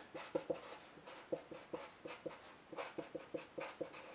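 Felt-tip marker pen writing on paper: a run of short scratchy pen strokes, about four a second.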